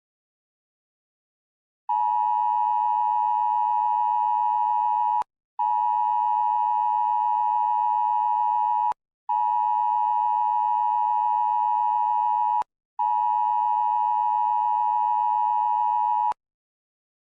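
Emergency Alert System style attention signal: a steady, harsh two-pitch electronic tone, sounded four times for about three seconds each with short breaks between, starting about two seconds in.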